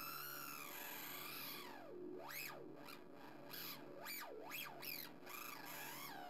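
Uoki-Toki Butterscotch drone synthesizer playing an oscillator drone while its resonant low-pass filter is swept by hand. There is a slow arching sweep at the start, then several quick rising-and-falling sweeps through the middle.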